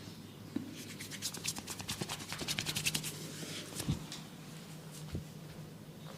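A barber's hands massaging an oiled scalp and hair, giving a fast, even run of scratchy rubbing strokes, about nine a second. The run lasts about two and a half seconds and grows louder towards its end, followed by a couple of soft single knocks.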